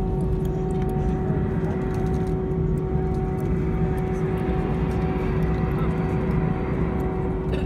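Steady mechanical drone inside an airliner cabin at the gate: a low rumble with a constant hum, from the plane's ventilation and the engines of the machinery outside. A hiss swells through the middle as a de-icing truck sprays fluid onto the wing.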